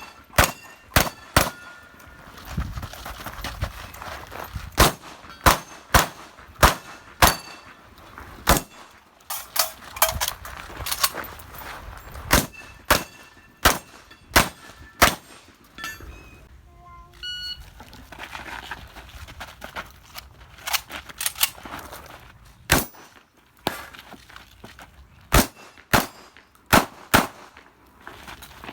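Shotgun fired in rapid strings during an IPSC shotgun stage, dozens of sharp shots with brief pauses between strings, some hits followed by the short ring of steel targets.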